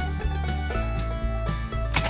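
Background music: a plucked-string tune over a steady bass line.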